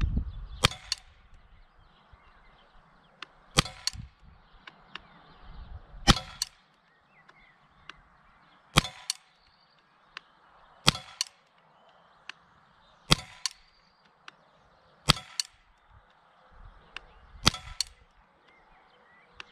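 Walther PPQ M2 4.5 mm CO2 blowback pellet pistol firing eight spaced single shots, about one every two to two and a half seconds. Each shot is a sharp crack with a quick second click right behind it.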